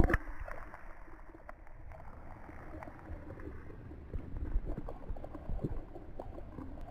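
Muffled underwater sound from a camera held under the surface of a shallow creek: a low rumble of moving water with scattered faint clicks and knocks, with the high end cut off. A sharp knock comes at the very start, as the camera goes under.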